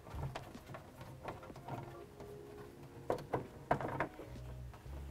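Light, scattered clicks and rustles of plastic parts and wiring being handled as an LED bulb's harness is tucked into the back of a pickup's headlight housing, a few sharper clicks around three to four seconds in.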